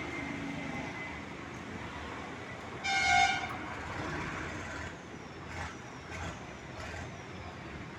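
A single short horn toot, about half a second long, about three seconds in, over steady outdoor background noise. A few faint ticks follow a little later.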